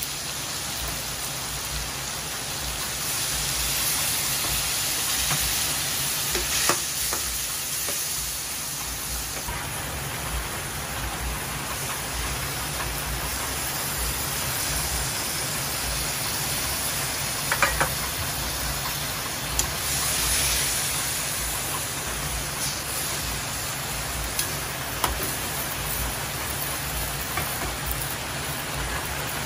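Pork, onion and tomato sizzling steadily in a stainless-steel wok, with a few sharp clicks of the metal turner against the pan.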